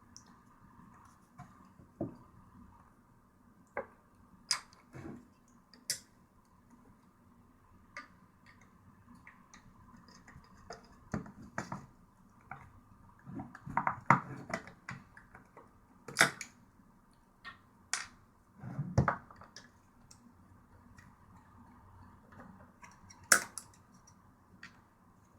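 Irregular clicks, taps and light knocks of a plastic external hard-drive enclosure and tools being handled, with a few louder knocks scattered among them.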